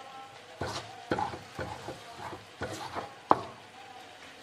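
Stone pestle knocking and scraping in a clay mortar (Indonesian cobek and ulekan) holding ground spice paste with lemongrass and kaffir lime leaves: about seven irregular knocks, the sharpest about three seconds in.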